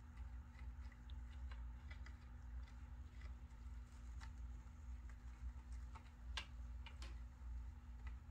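Faint, scattered ticks and light scrapes of kittens' paws and claws on a wooden platform as they play-wrestle, with two sharper clicks about six and seven seconds in, over a steady low hum.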